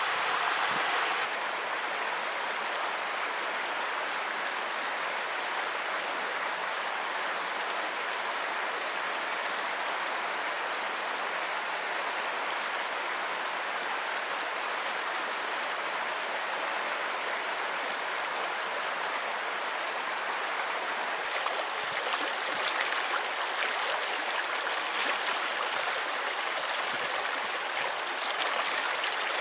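Creek water running steadily, with no voices. The sound changes abruptly about a second in and again about 21 seconds in, and the later stretch is brighter with more splashing and crackle.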